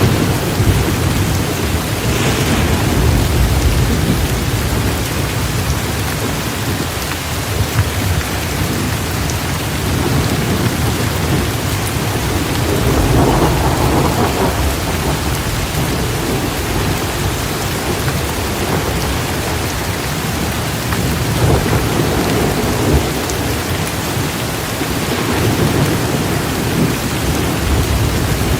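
Heavy rain pouring steadily, with low rolling thunder swelling up several times.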